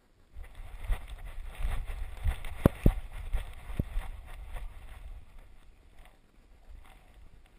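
Bumping and rumbling from a GoPro strapped to a Greater Swiss Mountain Dog as it bounds through deep snow, with a few sharp knocks against the camera near the middle. The noise starts suddenly just after the beginning and dies down toward the end.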